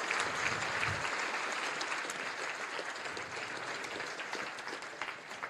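Audience applauding, gradually dying away toward the end.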